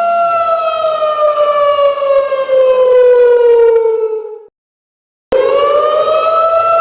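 Siren wailing: a steady high tone that slowly falls in pitch for about four seconds, cuts off abruptly into a brief silence, then starts again low and rises back up to the steady tone.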